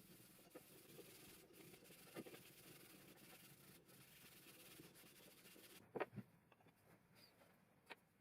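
Near silence: a faint hiss with a few soft ticks, then two sharper clicks about six and eight seconds in.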